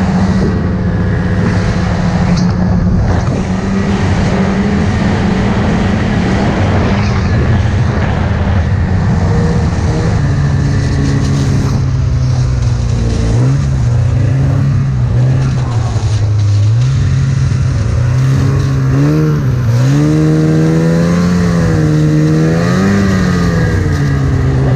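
Snowmobile engine running under way, its pitch fairly steady at first and then rising and falling again and again through the second half as the throttle is worked.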